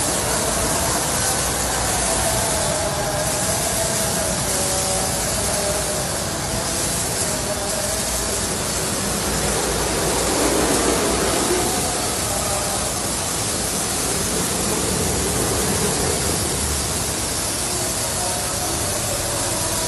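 Automatic gantry car wash running: water spraying and the rotating brushes turning over a van, a steady rushing hiss.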